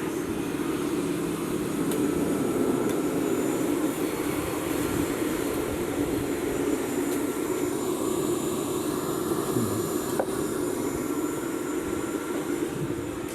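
Wood-fired rocket stove under forced draught from its electric blower, giving a steady roar of fan and fire as the freshly lit wood catches, with a few faint crackles.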